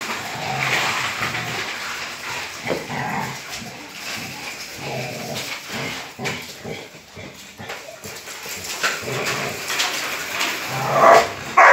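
Two Rottweilers growling and snarling as they tug and fight over a motorcycle tyre. Two loud, sharper outbursts come near the end.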